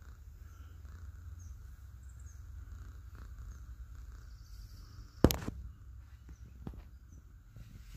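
A single sharp knock or click about five seconds in, with a softer one a second or so later and a few faint ticks, over a steady low rumble.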